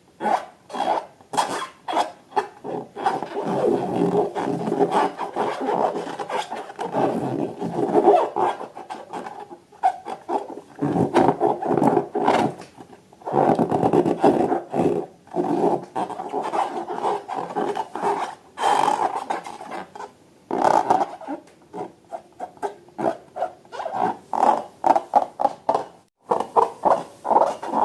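Rubber balloons being handled: rough squeaking and rubbing in long stretches, broken up by short choppy strokes.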